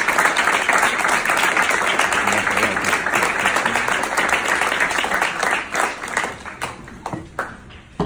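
A roomful of people applauding, a dense patter of many hands clapping that thins out over the last couple of seconds to a few scattered claps and dies away.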